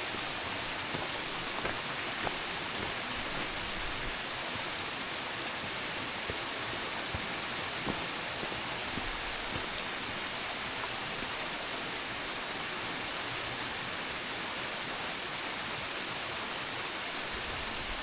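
Steady rush of running water from a mountain stream or waterfall, with a few faint ticks scattered through it.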